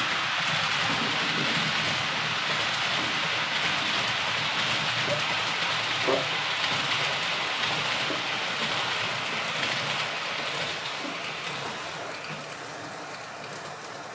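H0 scale model train running along the track, a steady rolling hiss that fades away over the last few seconds.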